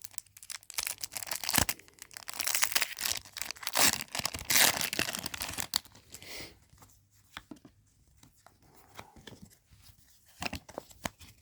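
Foil wrapper of a Pokémon booster pack being torn open and crinkled for about six seconds, followed by quieter scattered ticks and rustles.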